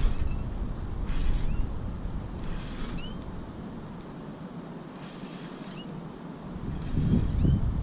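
Fishing reel being cranked in short spurts while a topwater popper is worked back: four brief whirring swishes, each with a faint rising squeak. Low wind rumble on the microphone fades away in the middle and returns louder near the end.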